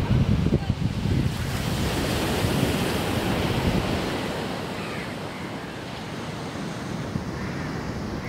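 Sea surf breaking and washing up the beach as a steady hiss, with wind buffeting the microphone for about the first second.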